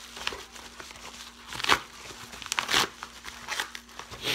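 Packaging crinkling and crackling as it is handled and opened by hand, in irregular strokes with a few louder crunches about midway.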